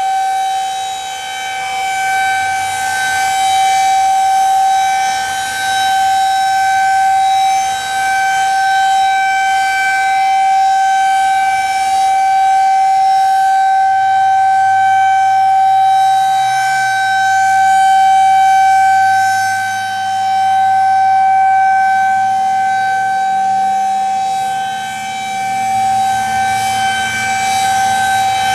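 Outdoor tornado warning siren sounding a steady tone during a test. Its pitch holds level while its loudness swells and fades slowly several times.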